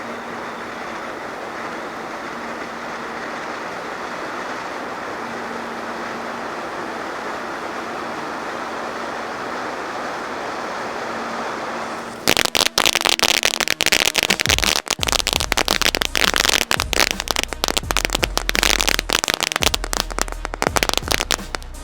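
Popcorn Fountain ground firework burning: a steady hissing spray of sparks, then about twelve seconds in a dense, much louder crackling breaks out and continues.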